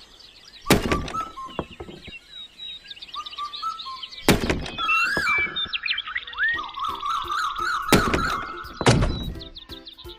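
Four loud, sharp thuds, about a second in, about four seconds in, and twice near the end, over music and bird-like chirping.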